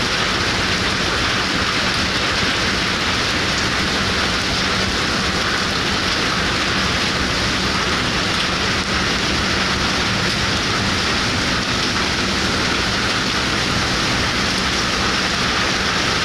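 Steady rain falling on a ferry deck and the water around it, with a faint low hum running underneath.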